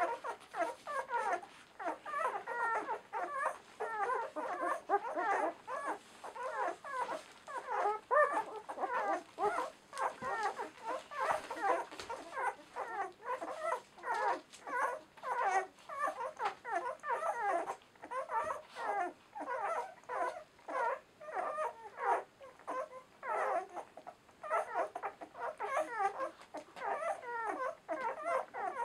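A litter of ten-day-old German Shorthaired Pointer puppies squeaking and whimpering while nursing: a near-continuous chatter of short, high squeaks from several pups at once.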